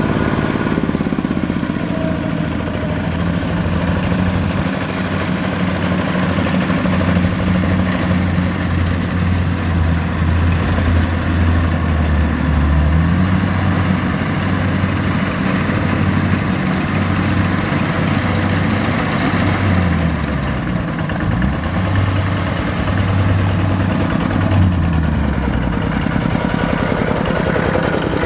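Two-wheel walking tractor's diesel engine running steadily under load, its pitch rising and falling several times as the throttle changes.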